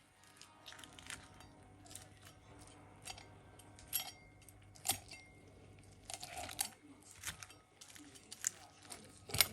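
Knife carving into a roast chicken: crisp skin crackling and a scattering of sharp clicks from the blade, with the loudest click near the end.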